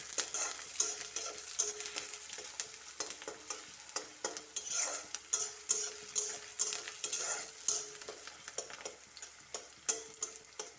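Onions sizzling as they fry in hot oil in a kadai, stirred with a spatula that scrapes the pan in many short, uneven strokes over the steady sizzle.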